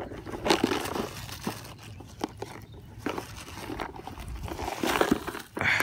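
Irregular rustling and scuffing of denim, with scattered light clicks, as a gloved hand rummages through jeans pockets.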